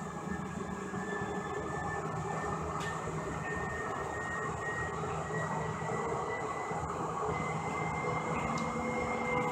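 Siemens S200 light rail car running along the track, heard from inside the passenger cabin: a steady rumble of wheels and running gear, with a thin high whine that rises slowly in pitch.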